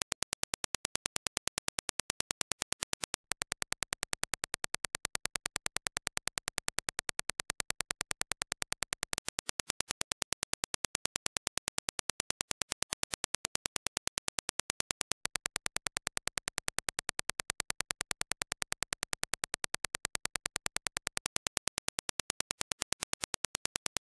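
Reference Dirac impulse test signal: a rapid, perfectly even train of sharp, identical clicks, several a second. It is the ideal impulse that headphone transient response is compared against.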